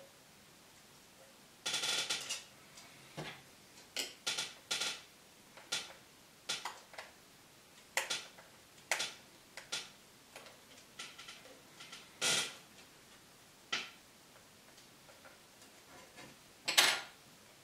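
Irregular sharp clicks and taps, about one or two a second, with a short rattle about two seconds in and the loudest click near the end: small parts and tools knocking against a MacBook Pro's aluminium top case while the trackpad's ribbon cable is disconnected.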